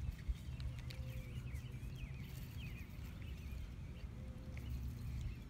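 Wind rumbling on the microphone, with small birds chirping over and over and two sharp knocks just after the start.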